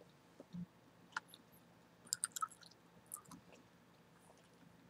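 Chewing gum worked close to the microphone with the mouth closed: a few scattered, soft wet clicks and smacks, bunched around two and three seconds in.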